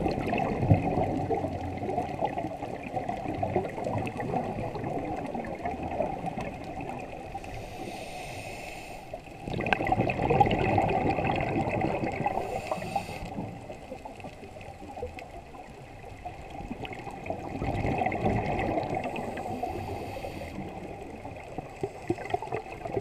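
Scuba diver breathing through a regulator underwater: exhaled bubbles gurgling and rushing in long rounds, with quieter gaps and a brief hiss between them.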